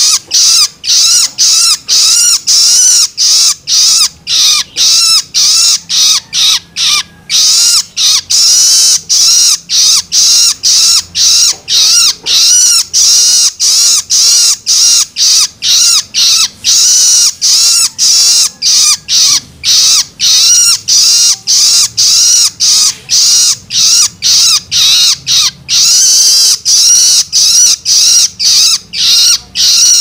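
Juvenile long-tailed shrike (cendet) giving its begging call (loloan): loud, harsh, raspy calls repeated about twice a second with short gaps between them, the food-begging call of a young bird.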